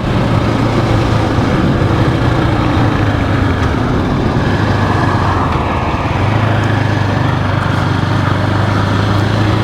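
GasGas ES700 dual-sport motorcycle's single-cylinder engine running at a steady cruise under way, with wind noise rushing over the microphone.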